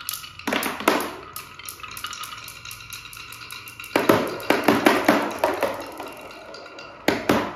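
Marbles rolling and clicking down a wooden HABA marble run, with bursts of dense clattering about half a second in, from about four to six seconds, and again around seven seconds.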